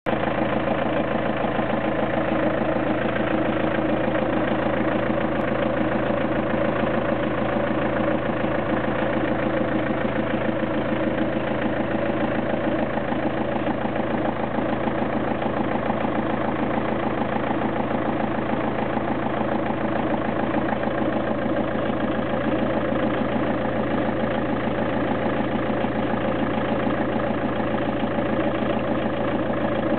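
Car engine idling steadily and evenly.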